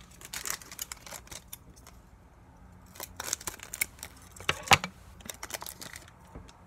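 Pokémon trading cards being handled as a booster pack is gone through: short crisp rustles and flicks of card stock in a few bunches, with one sharper tap about four and a half seconds in.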